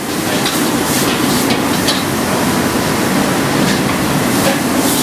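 Stir-frying in a wok on a high-flame wok burner: a steady rush of burner noise and sizzling, with the metal ladle clanking against the wok a few times.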